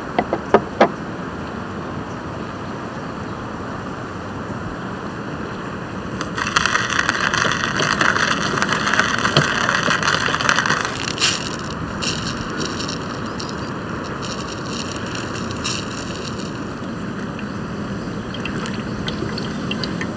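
A few sharp crunches just under a second in, then a hand coffee grinder grinding beans for about four seconds, over a steady outdoor background hiss.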